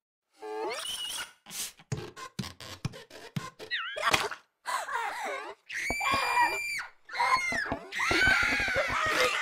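Dubbed comic sound effects: a rising squeal, a quick run of knocks and thuds, then high-pitched screaming, with the longest scream near the end.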